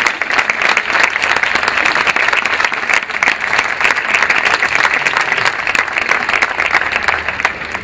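Audience applauding: many hands clapping in a dense, steady patter that dies down at the end.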